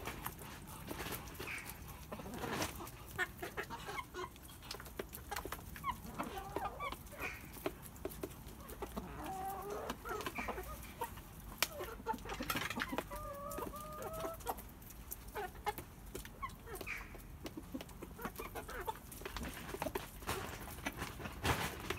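Chickens clucking and giving short soft calls now and then while they feed, over frequent sharp taps of beaks pecking at food in a tray.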